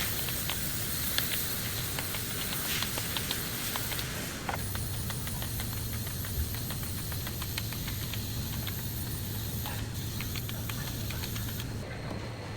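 Steady hissing with many light, scattered ticks over a low hum.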